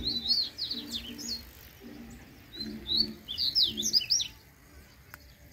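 Double-collared seedeater singing two quick phrases of rapid, sweeping whistled notes, the second starting about two and a half seconds in. A faint low note repeats steadily underneath.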